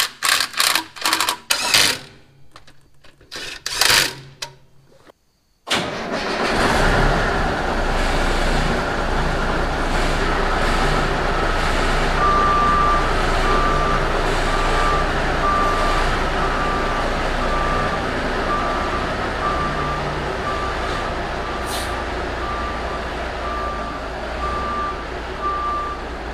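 Clicks and knocks from hand work on the truck's transmission for a few seconds, then, after a cut, a 1987 International Paystar dump truck's engine running steadily. From about ten seconds in, a backup alarm beeps at an even pace, about one and a half beeps a second.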